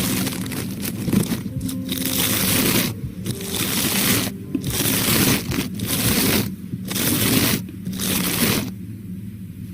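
Close-miked ASMR trigger sounds: a series of rushing, rubbing noises about a second long each, with short breaks between, stopping shortly before the end.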